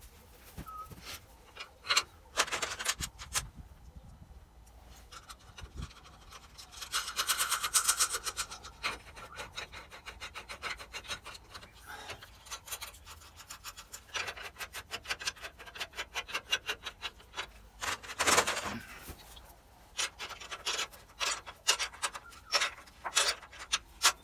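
Metal parts and hand tools clicking and scraping as a truck battery's hold-down clamp and terminal are fastened. Runs of quick ticks and knocks, with two longer rasping scrapes, one about seven seconds in and one near eighteen seconds.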